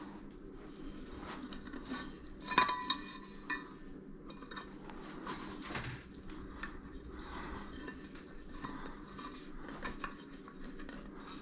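Stainless steel insulated water bottle being handled, its cap and metal body clinking and knocking lightly, with one louder metallic clink that rings briefly about two and a half seconds in.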